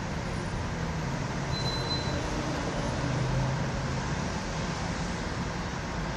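Steady rumble of vehicles crossing the Williamsburg Bridge, with a brief faint high squeal about two seconds in.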